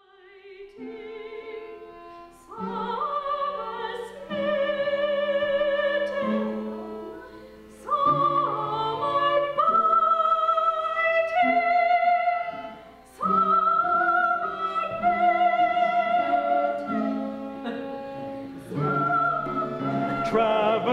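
Operatic singing: voices holding long notes with a wide vibrato, changing pitch every second or two. The music fades in at the start.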